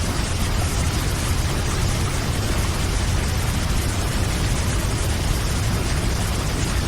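A fast, heavy river pouring into a waterfall: a steady, dense rush of water with a deep low rumble underneath.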